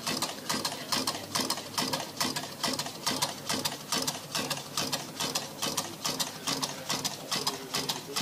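Homemade soda-can steam engine running on a tealight candle: its small piston and wire crank tick in a quick, steady rhythm as the CD flywheel turns.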